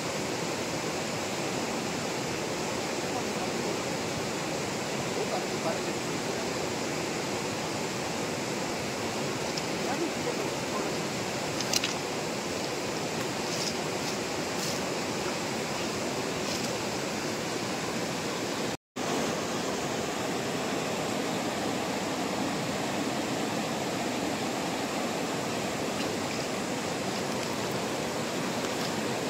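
Fast-flowing river rushing over rocks: a steady wash of water noise. A short sharp click about twelve seconds in, and the sound cuts out for an instant about two-thirds of the way through.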